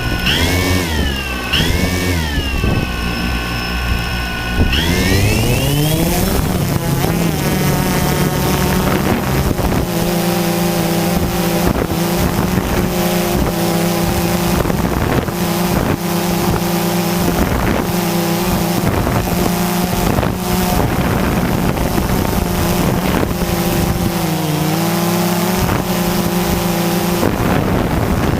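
DJI Phantom 2 quadcopter's electric motors and propellers. The pitch rises as they spool up about five seconds in, then holds as a steady buzzing whine in flight, with a brief dip and recovery in pitch near the end as the throttle changes.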